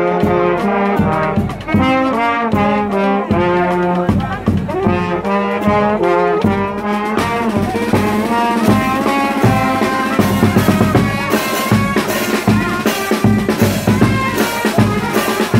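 Brass band playing a tune with trumpets and trombones; about halfway through the melody thickens into a fuller, noisier sound with a steady beat of about two strokes a second.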